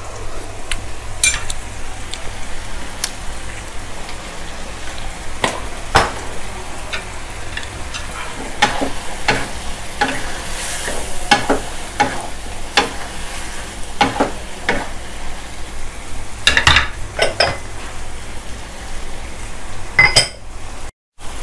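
Shiitake and white beech mushrooms, shrimp and bell pepper sizzling in oyster sauce in a stone-coated nonstick wok. A wooden spatula stirs them, scraping and knocking against the pan at irregular intervals. The sound briefly cuts out near the end.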